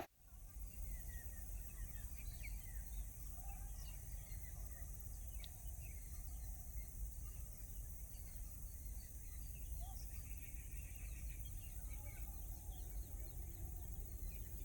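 Quiet outdoor ambience: scattered bird chirps and calls over a low steady background rumble, with a short rapid trill about ten seconds in.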